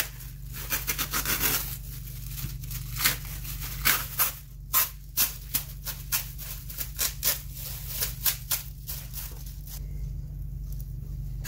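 Thin plastic masking sheet crinkling and rustling in irregular bursts as the excess is peeled away along a razor-scored line over masking tape, fading near the end. A steady low hum runs underneath.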